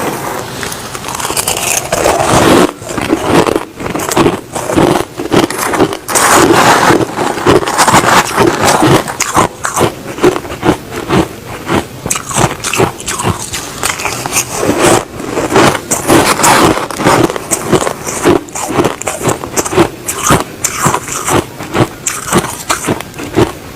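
Crushed ice being bitten and chewed close to the microphone: loud, irregular crunching and crackling, several crunches a second, without pause.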